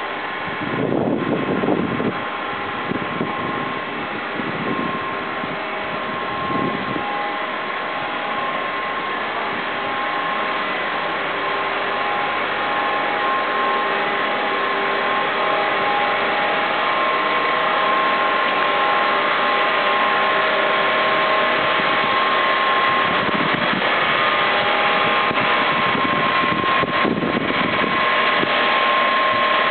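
Machinery of a used-engine-oil refinery plant running: a steady mechanical hum with several constant whining tones over a rushing noise, slowly growing louder.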